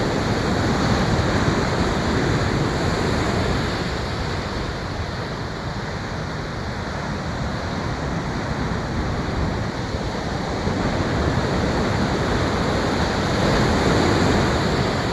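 Ocean surf washing onto the shore in a continuous rush, swelling louder near the start and again near the end.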